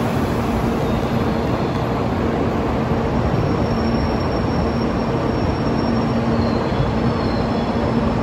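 Steady rumble of a Shinkansen train at the platform, with a low hum that fades in and out.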